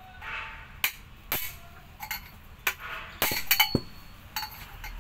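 Sharp, irregular metal clinks and taps as a steel tool knocks against the inside of a stripped truck differential housing. A few of the strikes ring briefly.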